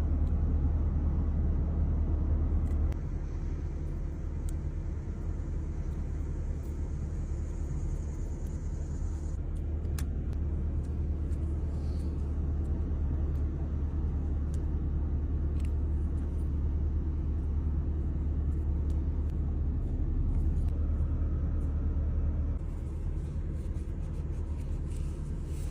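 Steady low rumble, like a vehicle running, with a few faint small clicks; it drops a little in level about three seconds in.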